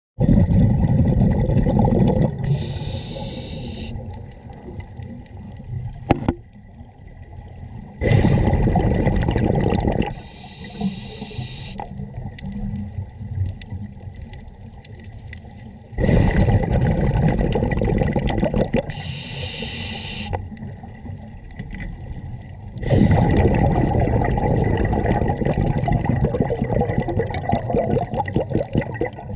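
Scuba diver breathing through a regulator underwater: short hissing inhalations alternate with loud bubbling bursts of exhaled air, about four breaths in the cycle, each exhalation lasting several seconds.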